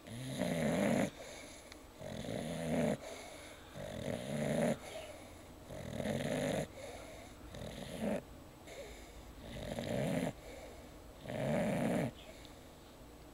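A sleeping pet snoring in a slow, even rhythm. There are seven snores in a row, each about a second long with a low rattle, coming roughly every one and a half to two seconds.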